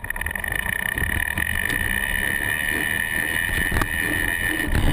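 Mountain bike rolling fast on a paved road, heard through a fork-mounted action camera: wind buffeting the microphone and tyre rumble, with a steady high whine over it.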